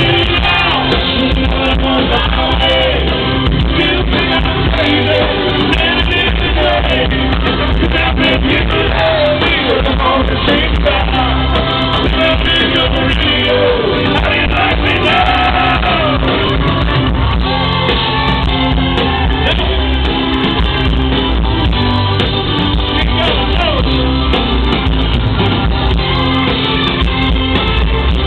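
Live country band with a male lead singer performing, loud and steady through the concert sound system, recorded from the crowd.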